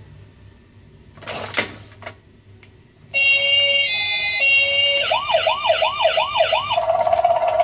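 Electronic sound chip of a Huile toy fire truck, set off by a button press. About three seconds in it plays a few steady electronic beeps that switch pitch, then a fast warbling siren of five quick up-and-down sweeps, then a steady electronic tone over a buzzy hum near the end. A brief noise comes about a second in.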